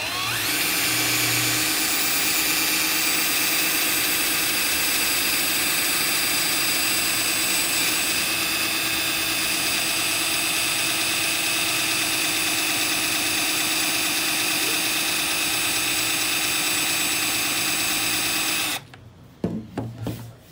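A 20 V cordless drill runs steadily under load, boring a small starter hole. It stops about a second and a half before the end, followed by a few light knocks.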